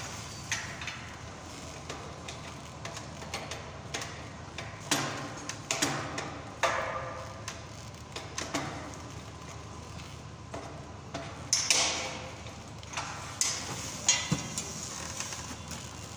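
Scattered metallic clicks and clanks, a dozen or so at uneven intervals, from a chain-clamped pipe drilling machine being handled and adjusted on a steel sprinkler pipe. No motor is running.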